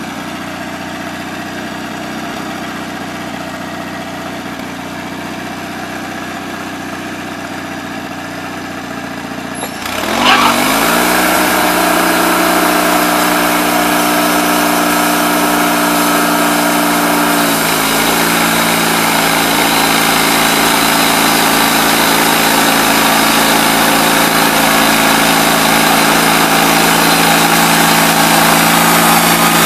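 Portable band sawmill's engine idling, then throttled up with a click about ten seconds in, spinning the band blade up to speed. It runs loud and steady from then on, its pitch settling a little lower partway through.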